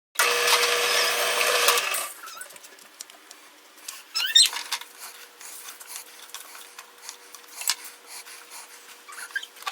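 A power tool runs for about two seconds, then cuts off. Light knocks, scrapes and a brief squeak follow as wood is handled, over a faint steady hum.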